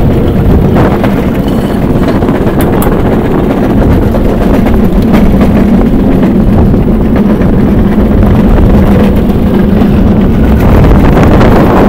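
Rail bike rolling along steel railway track, its wheels giving a loud, steady rumble on the rails, with wind buffeting the microphone.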